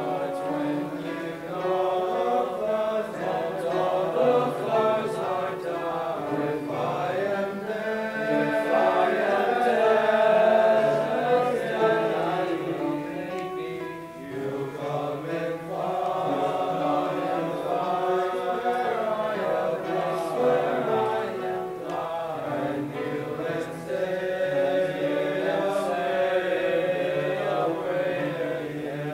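A teenage boys' choir singing a slow piece in harmony on long held chords. The chords swell a third of the way in and pause briefly for breath about halfway.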